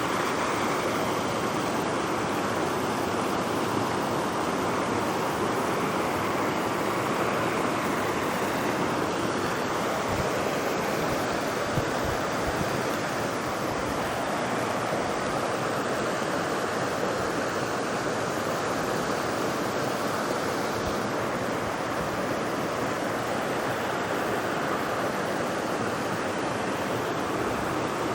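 A rushing mountain stream tumbling over rocks and small cascades: a steady, even roar of water.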